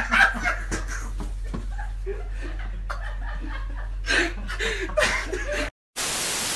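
People chuckling and laughing over a low steady hum, with a louder bout of laughter about four seconds in. Near the end the sound drops out and a steady hiss of TV static follows.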